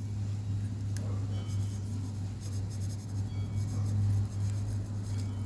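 Soldering iron tip scratching and scraping as it melts through a laptop fan's plastic housing, over a steady low electrical hum.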